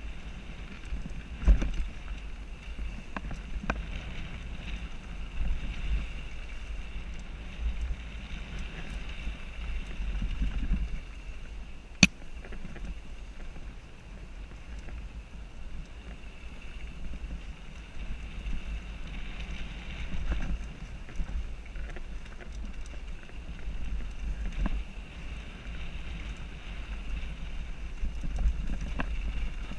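Wind buffeting a helmet-mounted GoPro in its housing during a mountain-bike ride, with a rumble that swells and fades and the small rattles of the bike over rough trail. Two sharp knocks stand out, one about a second and a half in and one about twelve seconds in.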